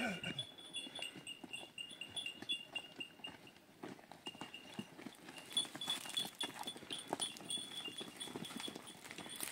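Livestock moving about, with small bells jingling in two long stretches and scattered hoof clicks, and a short falling animal call right at the start.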